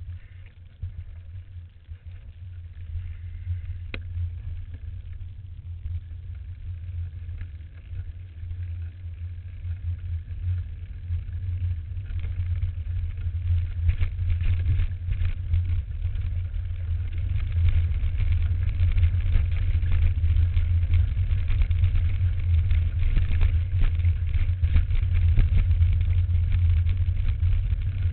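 Low rumble of wind and rolling noise on a camera carried on a mountain bike riding a dirt forest trail, with frequent small knocks and rattles from the bike going over bumps. It grows louder as the ride goes on and is loudest in the last third.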